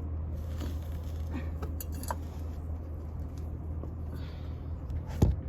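Steady low hum with a few light clicks and scrapes of things being moved around, and a single sharp knock about five seconds in.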